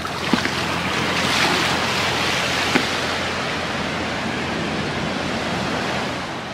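Ocean surf breaking and washing up the beach: the rush of water swells about a second in and then holds steady.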